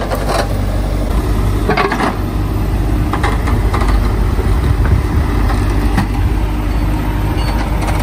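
Hidromek 102S backhoe loader's diesel engine running steadily under load as the backhoe bucket works the soil. Scattered knocks and scrapes of the bucket in earth, roots and stones.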